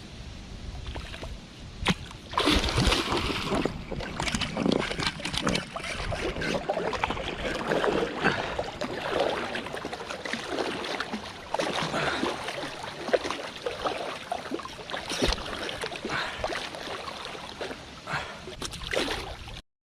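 Water splashing and sloshing irregularly with many small slaps, starting about two seconds in and cutting off suddenly near the end.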